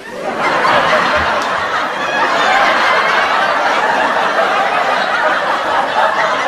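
Canned audience laughter: a recorded laugh track of a crowd laughing together, starting suddenly and holding at a steady level.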